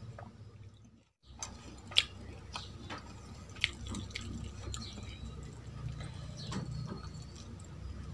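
Close-miked eating sounds: a sip from a glass of tea at the start, then, after a brief gap about a second in, sharp mouth clicks and smacks of chewing, the loudest about two seconds in, with fingers mixing rice and curry on a steel plate.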